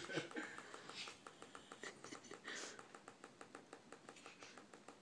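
A baby's brief laugh at the start, then a few faint, breathy sounds, barely above quiet room tone.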